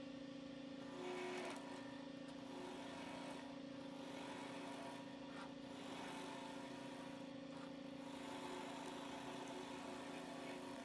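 Woodturning lathe running with a steady motor hum while a turning tool cuts into the spinning wooden spindle blank, the cut adding irregular bursts of hiss every few seconds.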